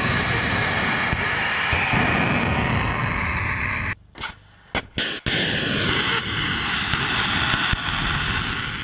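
Cruise missiles launching from a truck-mounted launcher, their rocket boosters giving a loud, dense roar. Two short gaps break it about four and five seconds in, and the roar then resumes.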